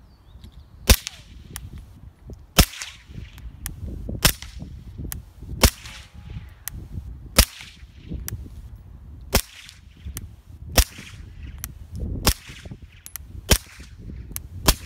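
Suppressed 9mm shots from a CZ P07 pistol with a SilencerCo Hybrid suppressor, firing 147-grain FMJ ammunition: about ten single shots, evenly paced at roughly one every second and a half.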